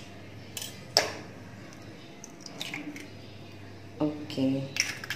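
A hen's egg being broken open by hand over a bowl of flour: a sharp click of shell about a second in and a few faint shell taps, with another click near the end. A short murmur of voice comes just before that last click.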